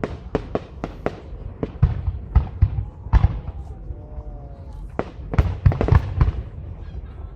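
A fireworks display, with aerial shells bursting in a rapid, irregular series of sharp bangs. Clusters of bangs come about a second in, around the middle, and again after five seconds.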